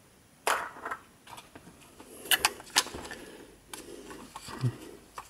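Plastic clicks and scraping as a thin metal pry tool works the press-fitted inner housing of a JBL Go 2 Bluetooth speaker loose from its shell. There are a handful of sharp clicks, the loudest about two and a half and three seconds in.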